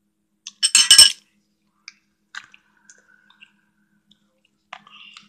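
A brief burst of clinking from a utensil knocking against a mixing bowl about a second in, with a short ring. Scattered faint clicks and taps follow.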